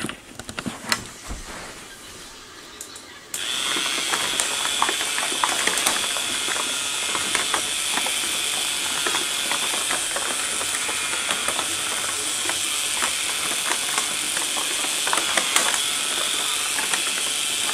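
K'nex paper shredder with CD cutting wheels, its small motor switched on about three seconds in after a few clicks. It then runs steadily with a high whine and rapid clicking of its plastic gears while it shreds paper.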